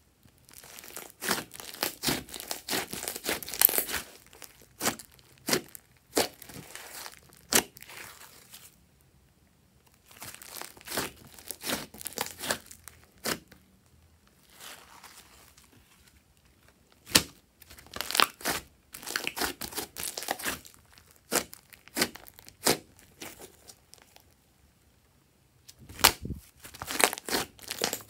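Purple slime with small foam beads being stretched, pressed and squeezed by hand: bursts of wet crackling and popping, with short quiet pauses between handfuls and a few sharper single pops.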